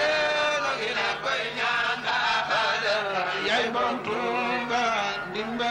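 A group of men chanting together in a Mouride religious chant, several voices overlapping and sliding in pitch, over a steady low hum.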